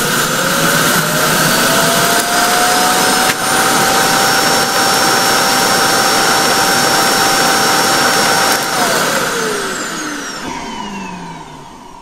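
iRobot Roomba i7+ Clean Base's evacuation vacuum emptying the docked robot's dustbin: a loud rush of air with a whine that climbs over the first few seconds, holds steady, then winds down about nine seconds in.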